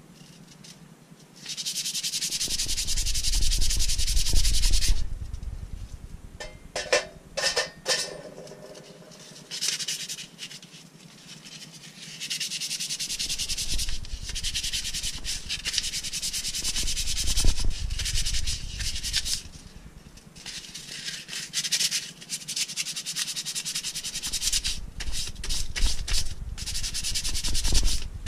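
Sandpaper scrubbing back and forth on a bicycle brake part in three long spells of rasping rubbing, with short strokes between them. A brief pitched squeak sounds about seven seconds in.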